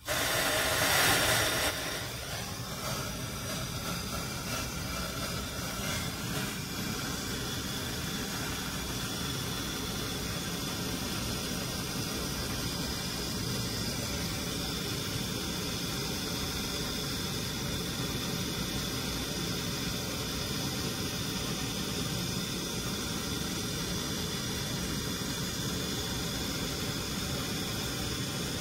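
Gas brazing torch flame hissing steadily while a copper service-valve stub is brazed onto a refrigerator's tubing; louder for the first couple of seconds, then an even, level hiss.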